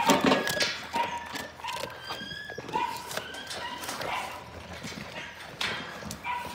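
Labrador retriever puppies whining in short, high whimpers, about one a second, with scattered knocks and rattles from the wire kennel pen.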